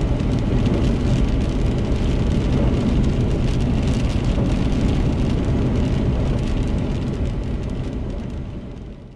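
Steady road and tyre noise inside a car on a wet highway, with rain ticking on the windshield. The sound fades out near the end.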